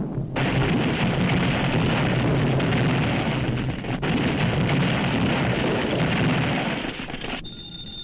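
Continuous roaring crash and explosion effects of burning meteor fragments raining down, in a 1940s animated cartoon soundtrack. It fades near the end, and a telephone bell starts ringing.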